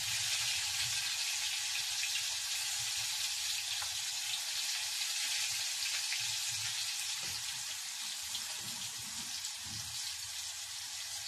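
Floured, egg-coated capelin shallow-frying in hot oil in a small pan: a steady, dense sizzle with fine crackles, easing slightly toward the end.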